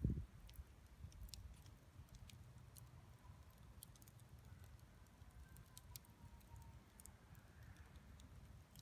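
Campfire burning quietly, with sparse small crackles and snaps from the burning wood over a low rumble. There is a low thump right at the start.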